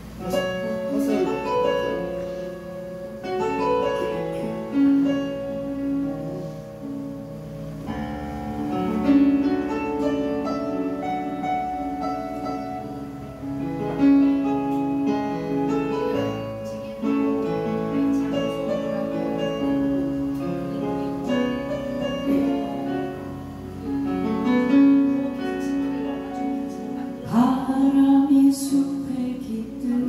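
A woman singing with long held notes while accompanying herself on a Yamaha S08 stage keyboard set to a piano sound.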